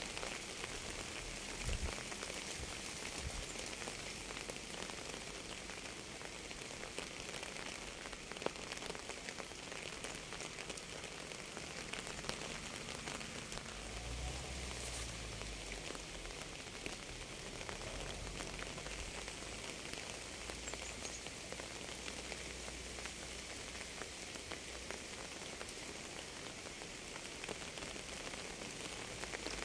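Steady rain falling on a surface, a dense even patter with many individual drops ticking and a couple of sharper drop clicks. A faint low rumble comes in about halfway through.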